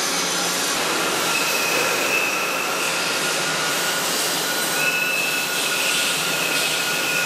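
Hwacheon Hi-TECH 350B CNC turning center finish-turning the outer diameter and face of a carbon-steel (SM45C) workpiece. The cut is a steady hiss, with a thin high whine from the tool that comes and goes.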